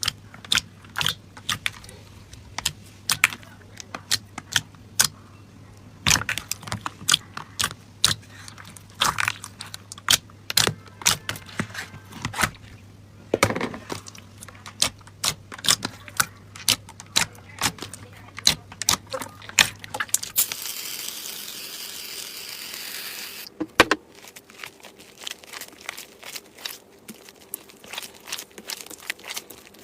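Slime being squeezed and poked by hand, making irregular sharp clicks and pops. About 21 seconds in there are a few seconds of steady hiss, and after that the clicking goes on more quietly.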